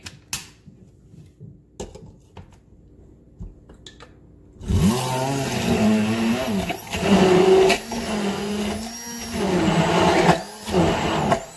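Immersion (stick) blender puréeing avocado, cilantro and lemon juice into a thick dressing in a tall beaker. A few faint knocks first; then the motor starts about halfway through, its pitch rising and falling in pulses as it works through the mixture, with brief dips, and it stops just before the end.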